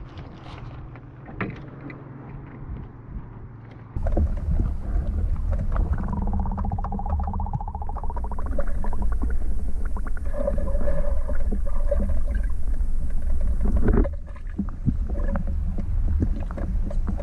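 Wind buffeting the microphone, a heavy low rumble that starts abruptly about four seconds in, with small knocks and faint pitched sounds underneath.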